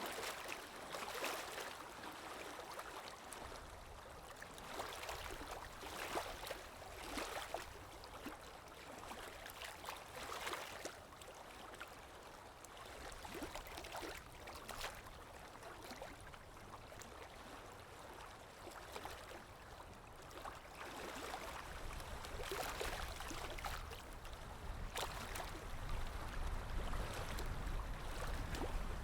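Water lapping in irregular soft splashes about every second or two, over a low wind rumble that grows stronger near the end.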